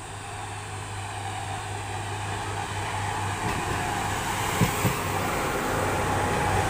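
Indian Railways RM80-92U ballast cleaning machine, with coaches coupled behind, running along the track toward the listener: a steady low drone that grows louder as it nears, with a couple of sharp wheel knocks about four and a half seconds in.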